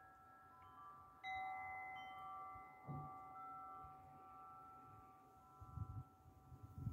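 Soft chime-like bell notes, entering one after another and ringing on together as long held tones, with a few faint low knocks near the end.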